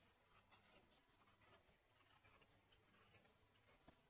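Faint, repeated scraping strokes of a hand vegetable peeler taking the skin off a turnip, with a small sharp click near the end.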